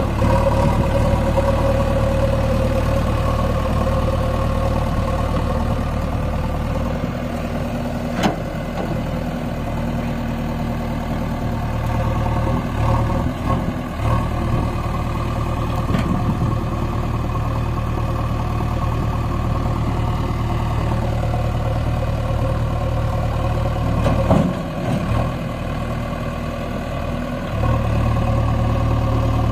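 JCB 3DX backhoe loader's diesel engine running steadily under load while it pulls a trolley stuck in river mud. Its note shifts about a quarter of the way in and again near the end.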